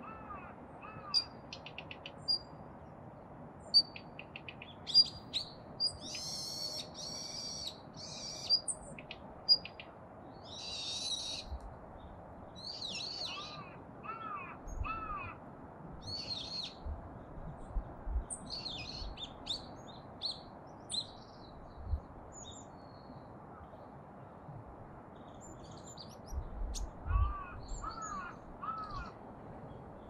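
Daurian redstart calling: short, thin high whistles and sharp, dry tack clicks, repeated irregularly. Another bird gives harsh rasping calls early on and short series of two or three lower, arched notes.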